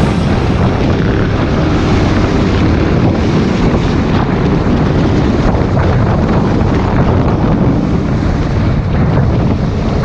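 Polaris 400 ATV engine running steadily at close range while riding, mixed with wind buffeting the microphone.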